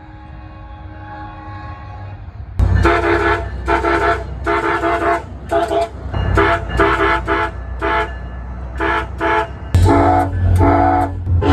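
SunRail commuter train's multi-chime air horn. It holds a faint chord at first, then from about two and a half seconds in sounds a long run of loud, short blasts in quick succession, with the train's low rumble underneath.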